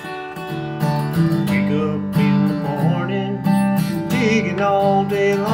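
Background song: strummed acoustic guitar with a voice singing.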